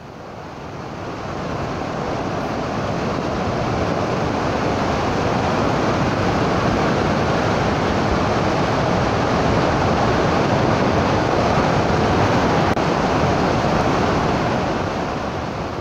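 Floodwater rushing down a swollen hill stream swollen by days of heavy rain: a loud, steady rush of turbulent water. It swells up over the first couple of seconds and eases off near the end.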